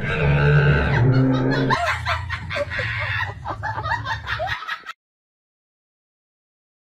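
A woman's drawn-out startled cry as a cat leaps at her, turning into a couple of seconds of giggling laughter. The sound cuts off abruptly about five seconds in.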